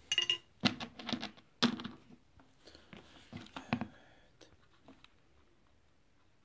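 Plastic parts of a hand blender being handled and taken apart: a scatter of clicks, knocks and rustling scrapes over the first four seconds, then almost nothing.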